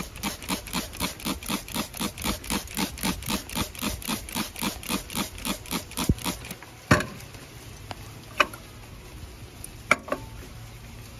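Hand trigger spray bottle pumped rapidly, about four squirts a second, rinsing precipitated gold powder in a glass beaker; the spraying stops after about six seconds, followed by a few single sharp knocks.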